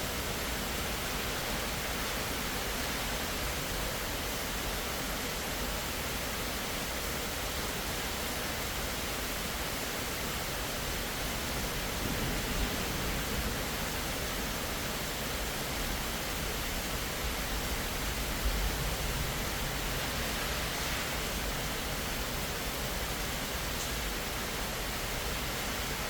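Steady rain falling, an even hiss with no change in strength, with two brief low bumps about halfway through and again some seconds later.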